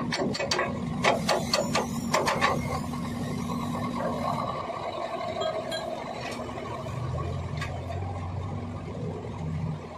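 Quick metallic clicks, several a second, for the first couple of seconds, then a steady low engine hum that grows stronger about seven seconds in.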